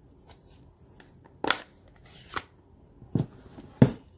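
A handful of light knocks and clicks as craft supplies are handled and set down on a tabletop, among them an ink pad and a clear acrylic stamp block. The last knock, near the end, is the loudest.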